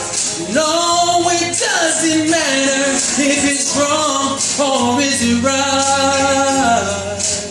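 A man sings long held notes into a microphone, sliding between them, without clear words, over backing music.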